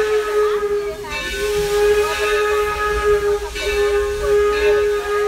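Torch Lake steam locomotive's whistle blowing one long steady blast, dipping briefly twice, over the hiss of escaping steam.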